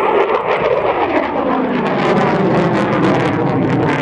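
Jet aircraft passing low overhead, its engine noise loud and rough with a crackle in the upper range. The pitch sweeps down over the first couple of seconds as it goes by.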